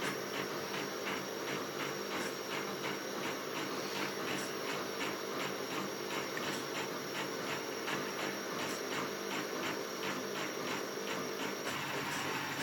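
Stepper motors of a 4-axis CNC hot wire foam cutter driving the wire carriages through a test run with no foam: a steady motor hum with faint, regular ticking, growing a little hissier near the end.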